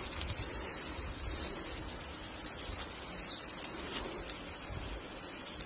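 Birds chirping: a few short, high, falling notes, several in the first second and a couple more about three seconds in, over a steady background hiss, with a few faint clicks.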